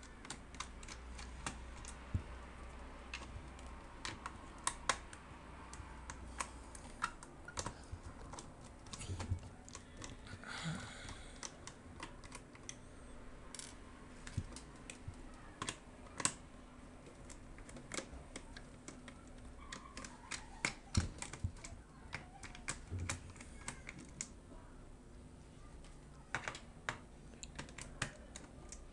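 Small screwdriver working screws out of the plastic bottom case of an Acer Aspire 7250G laptop: scattered light clicks and ticks, irregularly spaced, from the driver on the screws and from handling of the plastic case.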